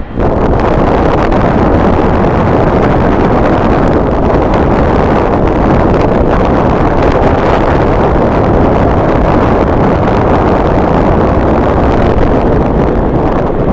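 Strong wind blowing across the microphone, a loud, steady rushing rumble.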